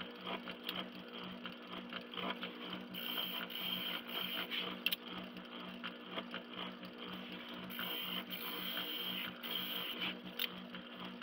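Benchtop spindle sander running with a steady hum while the curved edge of a fibreboard jig piece is worked against its sanding drum; the hiss of sanding swells and fades as the piece is pressed on and eased off along the contour.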